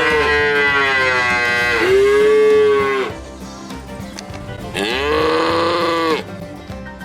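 Cattle mooing: a long, drawn-out moo runs straight into a second one that ends about three seconds in. After a short pause, another moo comes about five seconds in.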